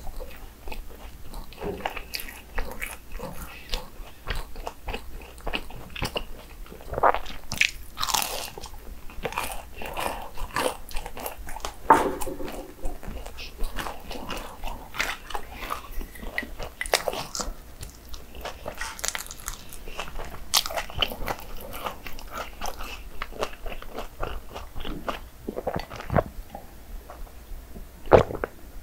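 Churros being bitten and chewed, a dense, irregular run of crisp crunches.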